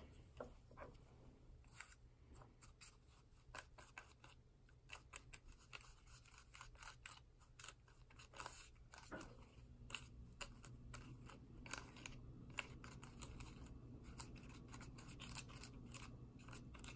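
Near silence with faint, scattered clicks and taps of a small plastic candy-kit tray being handled; a faint low hum comes in about halfway through.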